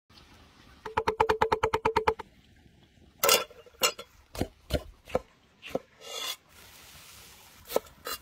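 Knife chopping on a wooden cutting board. It starts with a fast run of about ten chops a second, each with a short ringing note, then goes on as slower single chops about half a second apart.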